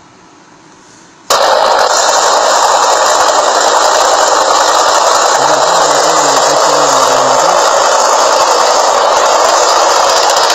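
Soundtrack of a played-back Facebook video clip of open sea: a loud, steady rushing noise like wind or engine noise. It starts suddenly about a second in and cuts off at the end, with a faint voice underneath for a couple of seconds midway.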